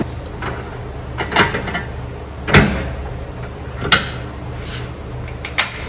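Sharp metallic knocks and clunks of a motorcycle tire being worked onto its rim on a tire-changer machine. There are four knocks spread a second or so apart, the loudest about two and a half seconds in, over a steady low hum.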